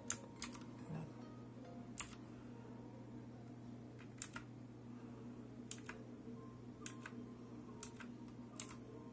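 Redragon K552 Kumara mechanical keyboard keys being pressed one at a time to switch its backlight modes: about nine separate sharp clicks, one to two seconds apart, over a low steady hum.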